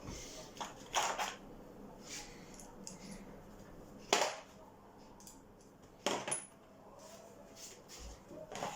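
Metal hinge parts and tools clinking and tapping as a refrigerator door hinge pin is worked on: a handful of sharp clinks, the loudest about four seconds in and another about six seconds in.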